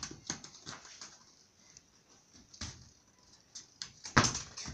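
Light scuffs and taps of a small child's feet moving on a concrete floor, with a sharp thump about four seconds in.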